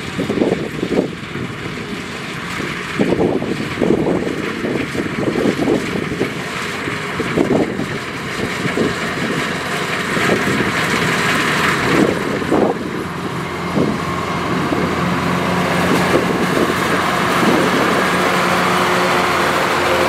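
Kubota DC105X rice combine harvester running at work, its diesel engine and threshing machinery giving a steady mechanical noise while it cuts standing rice. Gusty wind buffets the microphone over the first half. The engine hum grows steadier and louder in the last few seconds as the machine passes close.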